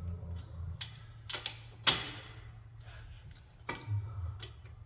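Metal brake parts clinking and clanking as they are handled and fitted to the rear axle, a handful of separate knocks. The loudest is a sharp metallic clank about two seconds in that rings briefly. A low steady hum runs underneath.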